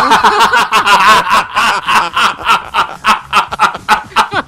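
People laughing hard in rapid, rhythmic pulses of about four to five a second.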